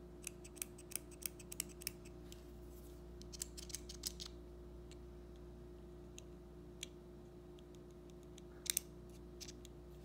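Small sharp clicks from an Everyman Grafton metal mechanical pencil being worked in the hand, its push-button mechanism clicking: a quick run of about six clicks in the first two seconds, a cluster around four seconds, a few single clicks, and a sharp double click near the end.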